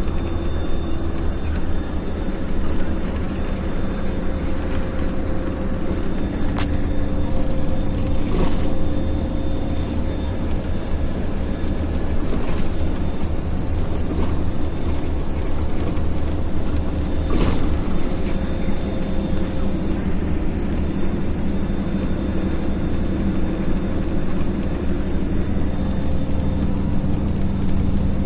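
Steady rumble and hum of a moving vehicle, with a few sharp knocks, three times.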